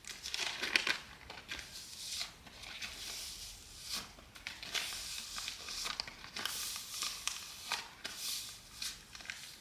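Crinkling and rustling of waxing supplies being handled. It comes as a run of short, soft scrapes and crackles with small pauses between them.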